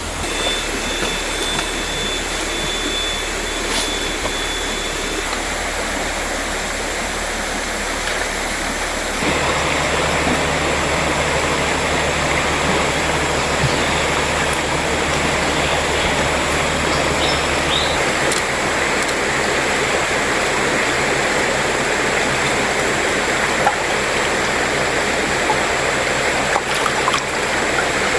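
Mountain river flowing, a steady rush of water that gets louder about nine seconds in.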